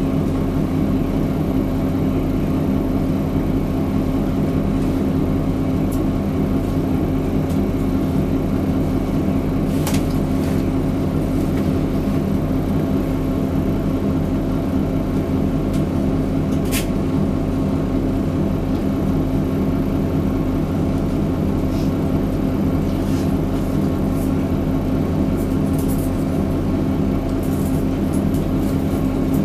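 Mitsubishi Fuso Aero Midi MK (KK-MK23HH) bus's 6M61 six-cylinder diesel idling steadily while the bus stands still, heard from inside the passenger cabin. Two brief clicks come through, one about ten seconds in and one a few seconds later.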